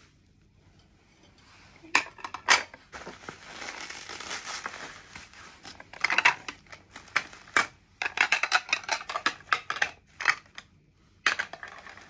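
Unpacking noises: two sharp ceramic clinks about two seconds in as a plate is handled against the stack, then a busy run of quick clicks and rustles from bubble wrap, tape and a cutter from about six to ten seconds, with one more sharp click near the end.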